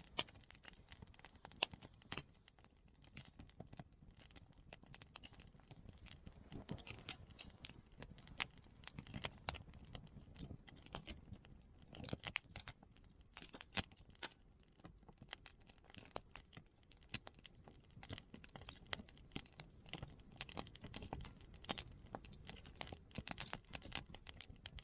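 Small wood fire crackling, with many irregular sharp pops and snaps over a faint low hiss.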